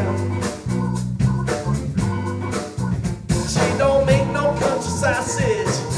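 Live band playing: drum kit, electric bass and electric guitar with keyboard, a steady beat with strong bass notes. A gliding melody line comes in about halfway through.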